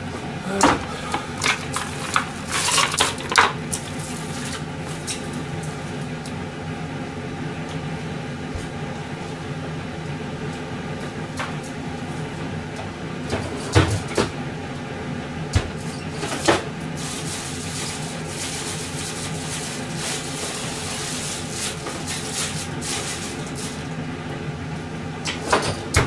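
Kitchen clatter: scattered knocks and clinks of dishes and cupboard doors over a steady hum. There is a cluster in the first few seconds, a few more around the middle and another near the end.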